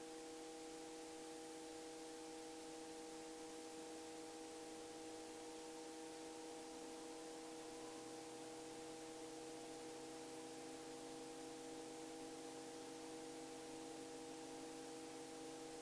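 Faint steady hum of several fixed tones over an even hiss.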